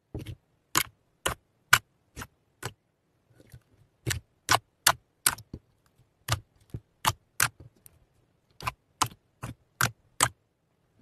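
Clear slime being pressed and poked with the fingers, making crisp popping clicks about two or three a second, in four runs with short pauses between.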